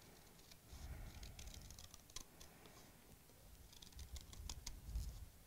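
Small scissors snipping through paper, faint, in short runs of little clicks with pauses between as the blades work around a cut-out shape.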